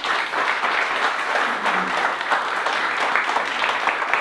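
A small audience applauding: many hands clapping steadily together.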